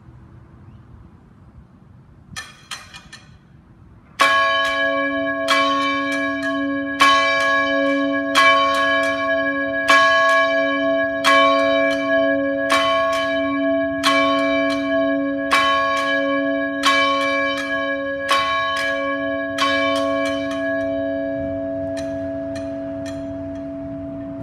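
A single church bell tolling, struck about a dozen times at an even pace of roughly one stroke every second and a half. After the last stroke its hum rings on and slowly fades.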